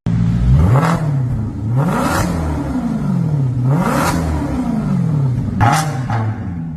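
Maserati GranTurismo S V8 engine revved four times, its note climbing and then falling back each time.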